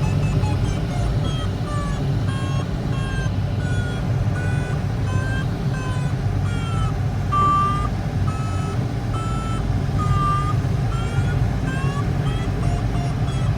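Glider variometer beeping: a run of short electronic beeps, each bending slightly in pitch, with the pitch shifting from beep to beep as the climb rate changes. This is the sound of the glider climbing in a thermal. Underneath is a steady low rush of cockpit noise.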